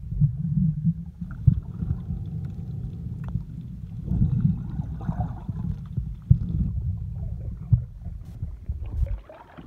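Muffled underwater noise: a low, irregular rumble of water moving around the submerged recorder, with scattered soft knocks and gurgles.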